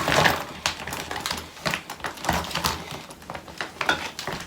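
Irregular clicks and light knocks of hair-styling tools being handled and set down.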